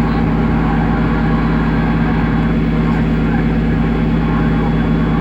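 Boat engine running at a steady, unchanging speed, loud and close.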